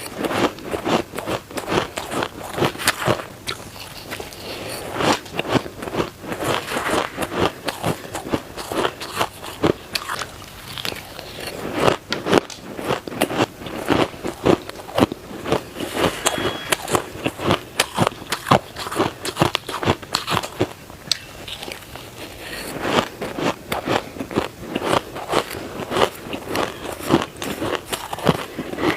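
Close-up crunching of dry, crushed shaved ice being bitten and chewed: a dense run of irregular sharp crackles and crunches.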